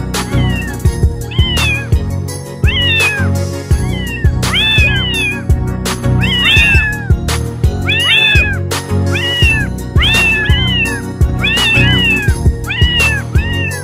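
A cat meowing over and over, short high calls that rise and fall about once a second, over background music with a steady beat.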